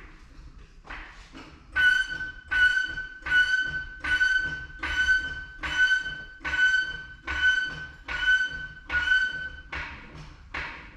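A high-pitched squeak with a rasp, repeating in a steady rhythm a little more than once a second, about ten times, then stopping.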